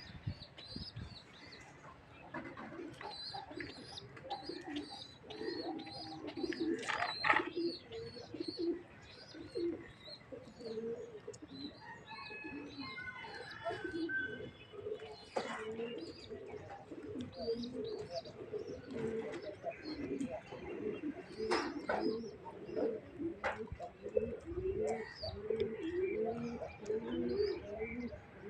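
Penned birds calling continuously: many low, repeated cooing calls overlapping, with short high chirps above them.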